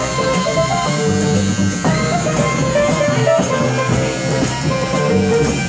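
Live music with an acoustic guitar playing among other instruments.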